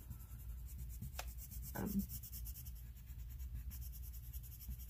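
Colored pencil scratching lightly on paper in quick, repeated small strokes as blue is blended over a drawn window. There is a single click about a second in, and a short vocal murmur near the two-second mark.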